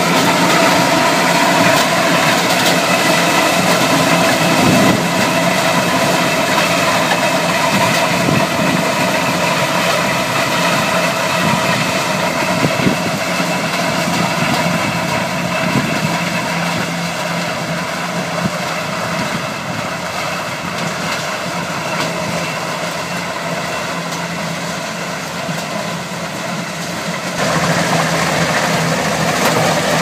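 Kubota DC70 Plus combine harvester's diesel engine and threshing machinery running steadily under load while cutting and threshing corn, a drone with higher level tones on top. It slowly gets fainter, then is suddenly louder again near the end.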